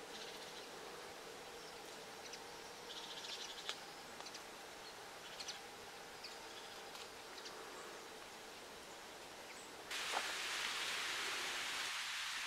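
Faint outdoor ambience with scattered short, high bird chirps over a low steady hum. About ten seconds in it switches abruptly to a louder, steady hiss.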